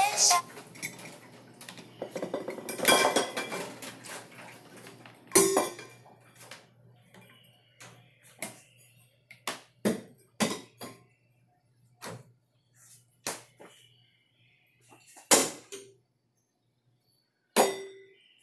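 A series of separate sharp clinks and knocks at uneven intervals, some ringing briefly, with quiet gaps between them.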